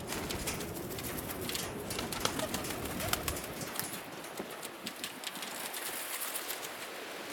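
Donek pigeons cooing in an aviary, with scattered sharp clicks and scuffs and a brief flutter of wings about six seconds in.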